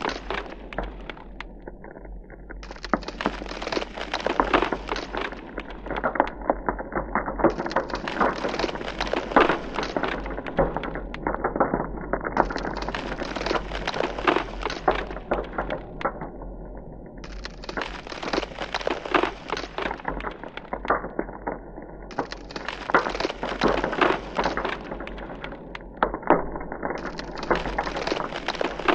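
Thin ice cracking and breaking in a dense, irregular run of sharp cracks as a polar bear pushes up through the ice sheet from below.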